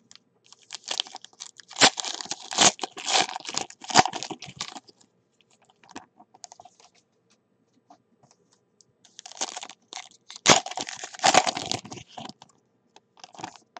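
Foil wrapper of a trading-card pack crinkling and tearing open as it is handled. There are two spells of crackling: one from about a second in to about five seconds, and another from around nine to twelve seconds in.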